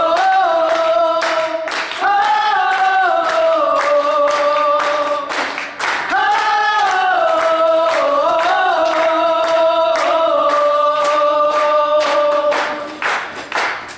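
Two women and a man singing a cappella in close harmony, holding long notes, over steady rhythmic hand claps keeping the beat. The voices thin out near the end.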